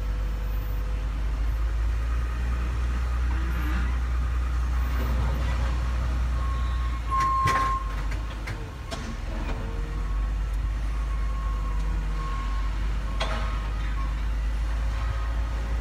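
Heavy machinery engine rumbling steadily, with a backup alarm beeping intermittently from about the middle on and a few sharp metal clanks.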